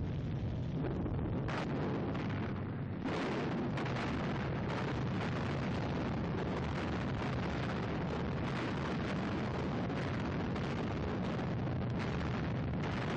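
Continuous rumble of bomb explosions from an old newsreel soundtrack, dense and noisy with no separate bangs standing out, growing fuller and louder about three seconds in.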